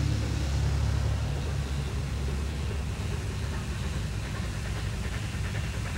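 A car that has just driven past rumbles away, fading over the first couple of seconds, leaving a steady low rumble.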